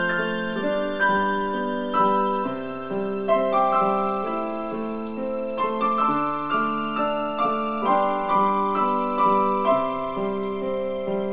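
Piano music: notes and chords struck one after another, each ringing on and fading.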